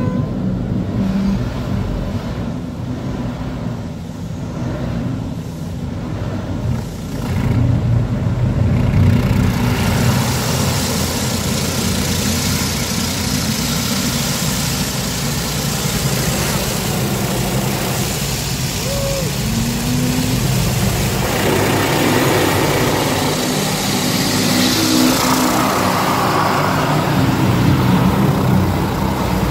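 Automatic car wash heard from inside the car: a steady low rumble with water spray hissing and drumming on the windshield and body, the spray growing much stronger about ten seconds in.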